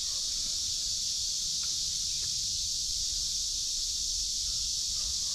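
Chorus of kuliglig (cicadas) calling in a steady, unbroken high-pitched drone.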